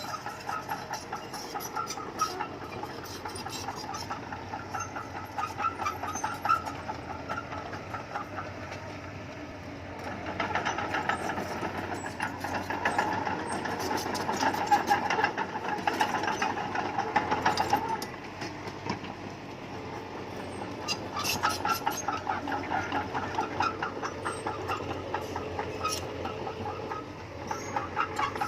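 Crawler bulldozer working: its diesel engine runs under the fast clatter of its tracks. The machine gets louder for several seconds in the middle.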